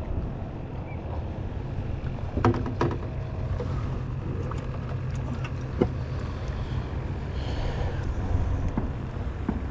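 Steady low rumble of wind and water around a small boat. A few sharp clicks and knocks sound over it, the loudest about two and a half seconds in and another near six seconds.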